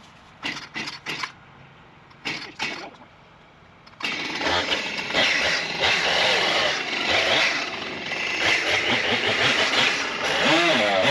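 A few short rasping pulls, then a chainsaw engine starts suddenly about four seconds in and keeps running loud, its speed rising and falling.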